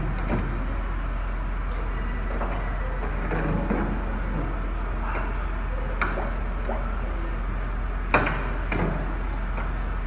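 Steady low hum with a few sharp metal clanks, the loudest about eight seconds in, as the hook and chain of a Venturo ET10KX truck-mounted crane are handled.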